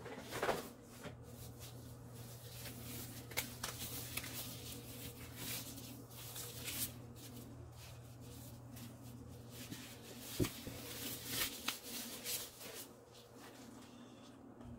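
Disposable clear plastic gloves being pulled on and handled, with irregular crinkling and rustling and scattered small clicks.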